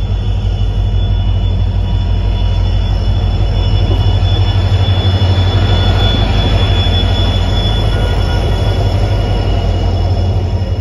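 Diesel-hauled passenger train pulling in close alongside: the locomotive's engine gives a low, steady drone while the wheels and brakes let out a steady, high squeal as the train slows at the platform.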